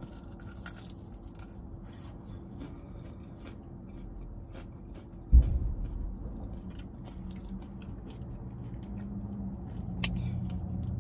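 Crunching and chewing of a crisp fried seaweed-wrapped noodle snack: many small sharp crunches. A dull thump about five seconds in is the loudest sound, followed by a low rumble.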